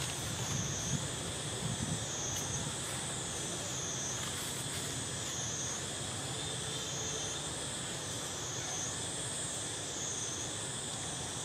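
A high-pitched insect chorus droning steadily outdoors, its highest part rising and falling in pitch about every second and a half over a constant lower buzz and a low background rumble.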